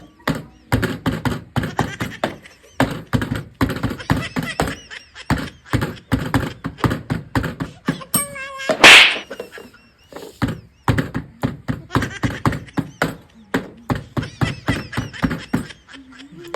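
Voices talking and calling out, with one loud, sharp burst about nine seconds in that is the loudest sound.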